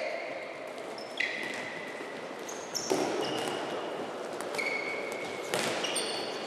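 Handballs bouncing and slapping on a wooden sports-hall floor, a few sharp knocks, with several short high squeaks of players' sports shoes on the floor.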